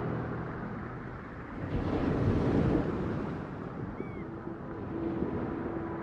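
Ocean-themed ambient soundtrack: a low rumbling wash of noise like distant surf that swells about two seconds in and then settles, with a steady low held tone coming in past the middle.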